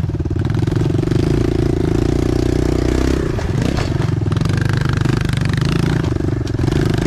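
Small pit bike engine running under throttle on a dirt trail, the engine note dropping and wavering about three seconds in as the throttle eases, then steadying again. A few knocks and rattles from the bike over the rough ground.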